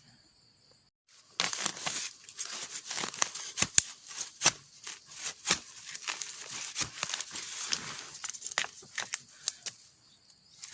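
Dry leaves and undergrowth rustling and crackling, with many sharp snaps of twigs. It starts about a second and a half in and stops shortly before the end.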